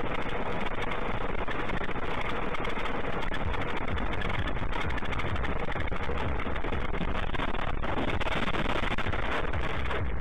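Steady drone of a car driving on a highway, heard from inside the car: engine and tyre noise with a strong low rumble.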